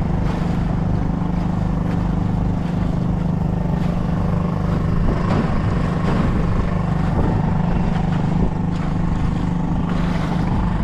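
Small boat's motor running steadily under way, a constant low hum.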